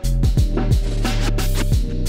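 Background music with a deep sustained bass line and a steady beat of booming kick drums and crisp hi-hat or snare hits, coming back in at full level right at the start.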